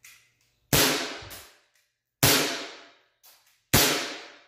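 Umarex Beretta APX CO2 BB pistol firing three shots about a second and a half apart at a laptop. Each shot is a sharp crack that rings out over most of a second, with fainter clicks between the shots.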